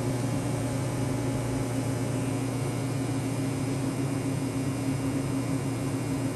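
Welding machine running with a steady hum under an even hiss from the welding arc on steel.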